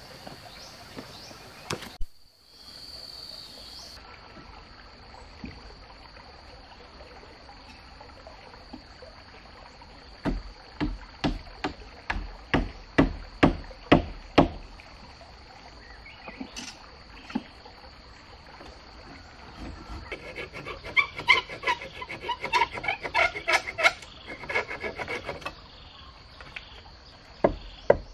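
A hand tool striking wooden logs: a run of about ten sharp knocks midway and more near the end, with a stretch of fast scraping on wood in between. A steady high insect drone runs underneath.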